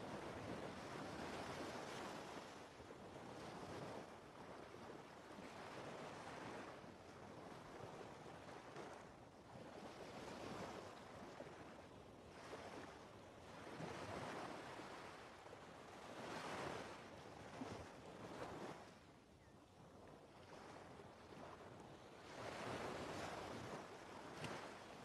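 Faint rushing noise like ocean surf, swelling and fading in irregular waves every few seconds.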